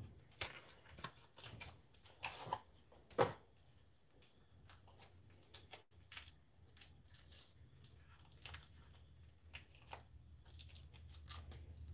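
Wrapper of a brick of cream cheese crinkling and crackling as it is peeled open by hand: faint scattered clicks and rustles, busiest in the first few seconds, then sparser.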